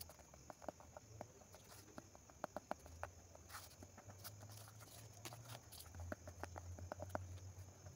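Glue stick rubbed along the back of a paper cutout lying on cardboard: faint scattered taps and paper rustles over a low hum.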